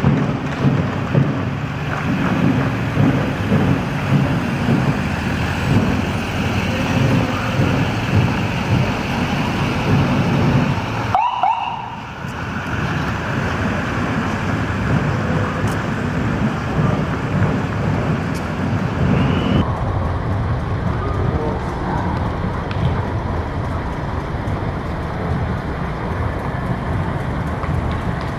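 Parade vehicles rolling slowly past, an ambulance and then a vintage convertible, with steady engine and street noise and a short siren-like chirp about halfway through.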